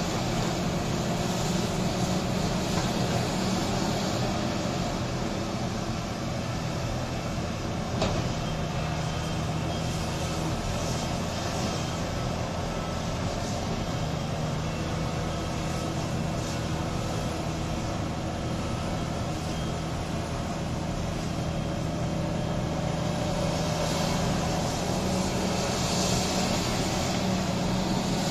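Big diesel engines of a Volvo EC950E mining excavator and an XCMG XDE150 dump truck run steadily as the excavator swings and loads. A single sharp knock comes about eight seconds in.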